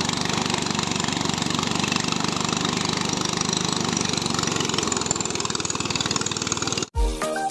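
Engine-driven portable rice thresher running steadily while rice stalks are fed into its drum. It cuts off abruptly near the end, replaced by music with a steady beat.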